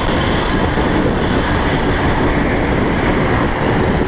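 Steady, loud wind rush and road rumble of a Lifan KPR 165 motorcycle ridden at highway speed, with wind buffeting the microphone and the single-cylinder engine running underneath.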